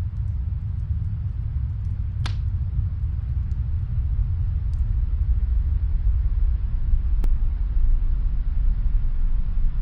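Steady low rumble of snowstorm wind, with a faint fireplace crackling through it: a few sharp pops, the loudest about two seconds in and another about seven seconds in.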